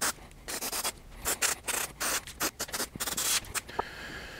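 Quick, irregular rubbing strokes, about three a second, of grease being worked over a truck door's metal window regulator track.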